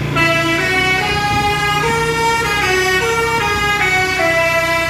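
Bus "telolet" Basuri musical air horn playing a quick tune of stepped notes, several tones sounding together, starting just after the beginning, with the bus engine running underneath.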